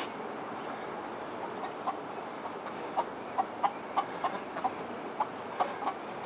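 Backyard hens clucking: a scatter of short, separate clucks starting about two seconds in, over a steady background hiss.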